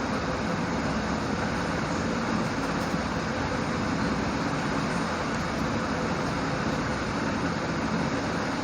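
Steady rushing background noise with no distinct knocks or tones.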